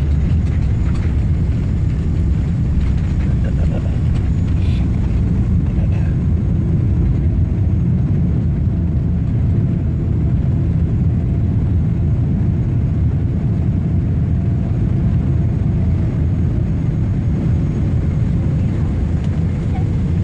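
Boeing 777-300 cabin noise from a window seat over the wing as the airliner rolls along the ground after landing: a steady, loud low rumble of wheels and engines. Through the second half a faint tone slowly drops in pitch.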